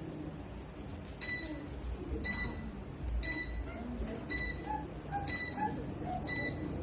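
Six short, high-pitched electronic beeps, about one a second, from a Deka F5DC DC-motor ceiling fan's receiver acknowledging repeated button presses on its remote control.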